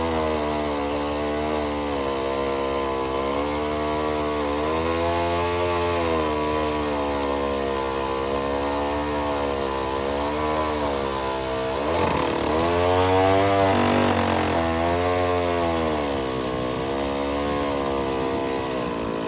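Vintage chainsaw engine running, its speed rising and falling about once a second, with a brief drop in speed near the middle followed by a couple of seconds of higher, louder running.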